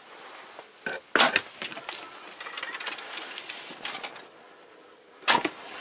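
Close rustling and sharp cracking clicks from movement inside a hunting ground blind. Two loud cracks stand out, one about a second in and one near the end.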